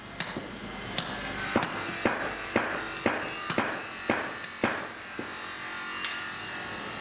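Hammer striking a carbon steel knife blade during forging, about nine ringing blows at roughly two a second that stop a little before five seconds in, followed by a steady hum.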